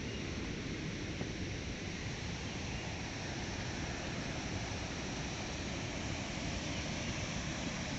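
Steady rush of a waterfall, with little water flowing in it.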